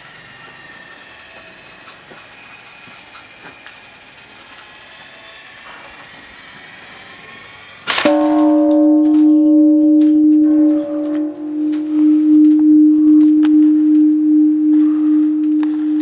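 A large Japanese temple bell (bonshō) struck once about halfway through, then ringing on with a deep, wavering hum while its higher tones fade: the dawn bell being rung.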